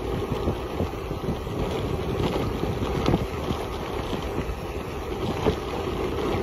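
Wind buffeting the microphone over bicycle tyres rolling on a gravel road, with many small crackles and ticks from loose stones under the wheels.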